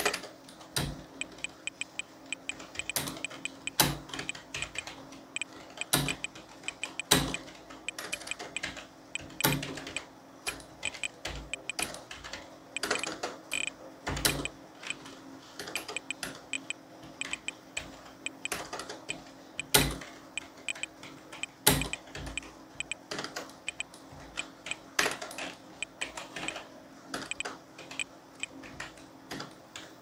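Typing on a Frontech KB0002 slim USB keyboard: an irregular stream of light key clicks with a louder clack now and then, over a faint steady hum.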